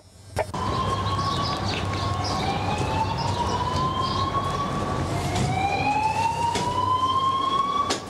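Fire alarm evacuation tone of the slow-whoop kind: a pitched tone sweeping slowly upward for about three and a half seconds, then starting over low and rising again, over background noise with a few short knocks.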